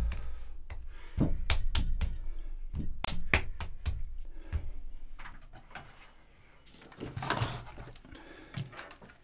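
Hands wedging a block of pottery clay on a work table: a run of dull thumps and knocks, about two a second, dying away after about five seconds. A brief rustling scrape comes near the end as the clay is handled.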